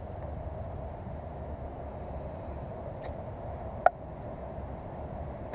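Handling noise from a freshly caught largemouth bass and fishing tackle on a kayak: a light click about three seconds in and a sharp click about four seconds in, over a steady low background rumble.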